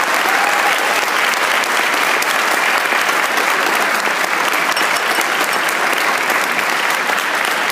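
Audience applauding steadily, with one pair of hands clapping close by.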